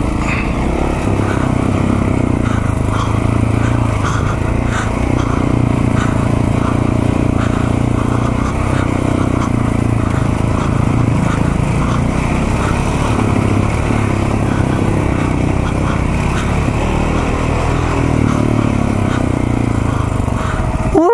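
KTM single-cylinder dirt bike engine running on a rocky trail, its pitch rising and falling as the throttle opens and closes, with a few faint knocks.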